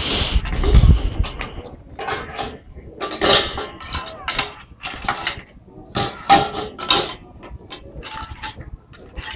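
Metal pots and bowls clinking and knocking together as they are handled, in a string of short irregular clinks, with a low rumble in the first second.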